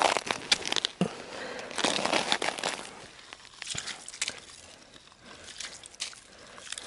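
An ice chisel strikes the ice of a frozen-over fishing hole once at the start, followed by crunching and crackling of broken ice and slush as the hole is cleared by hand.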